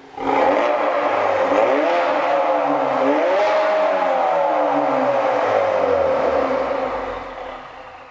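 Ford Focus RS Mk3's 2.3 EcoBoost turbocharged four-cylinder revved while stationary, heard through a Milltek non-resonated cat-back exhaust with its exhaust valve closed. The revs rise and fall twice in quick blips, then drop away slowly over the last few seconds.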